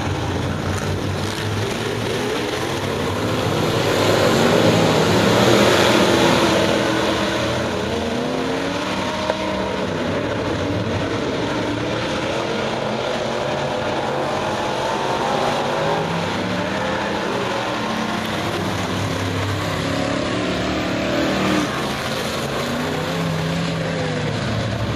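A pack of dirt-track modified race cars running their crate V8 engines around the oval, the engine notes rising and falling as they go through the turns. The sound swells louder for a few seconds as the pack comes by.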